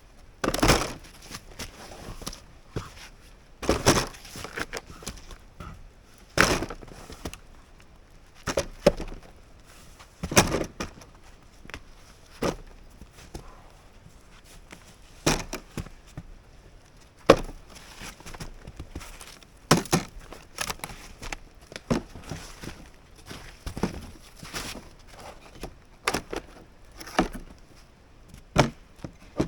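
Dry dead wood being broken and handled: sharp cracks and knocks at irregular intervals, a second or two apart.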